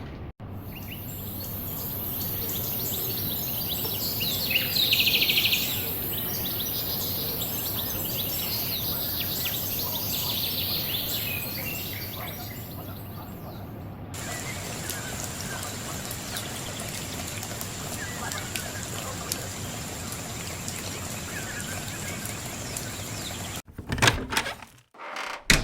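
Small birds chirping over a steady outdoor hiss, loudest in the first half, with fainter chirps after an abrupt change about halfway through. A few loud thumps come near the end.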